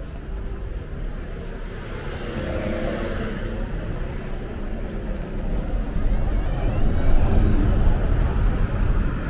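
A car driving past on the road, its low rumble growing louder over the last few seconds.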